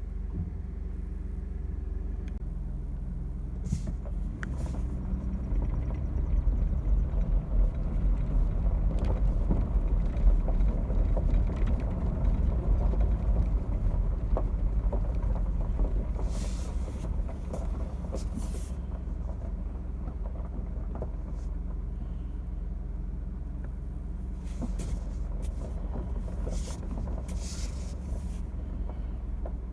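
Pickup truck engine running while driving, swelling louder through the middle and easing later, with knocks and rattles now and then.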